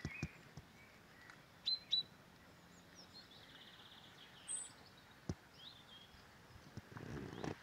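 Small songbirds calling: two sharp, high chirps close together about two seconds in, then a brief trill and scattered very high notes. A single sharp tap about five seconds in.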